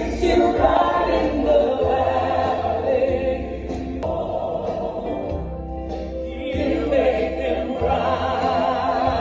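Background music with sung, choir-like voices over a steady bass, starting abruptly.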